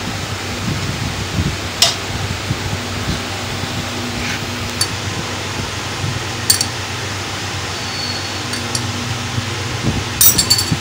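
Metal spoon clinking against an aluminium cooking pot several times as mutton masala is spooned onto biryani rice, with a cluster of clinks near the end, over a steady low hum.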